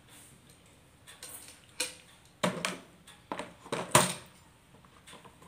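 Plastic bottles knocking and clattering against a plastic tray as they are picked up and set down: a string of sharp knocks over about two seconds, the loudest near the end.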